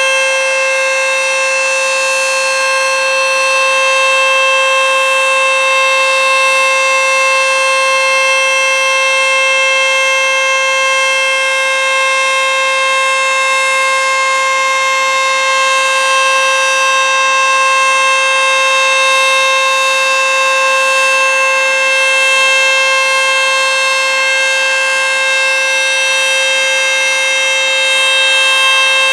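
ACA Screamer S-2 outdoor warning siren sounding a loud, steady tone at constant pitch during a scheduled siren test.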